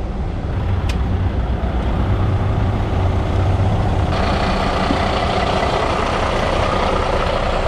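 Diesel truck engine rumbling steadily. About four seconds in, a louder rush of road and wind noise sets in on top of it.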